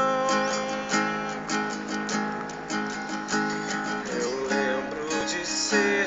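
Acoustic guitar strumming chords, steady and even.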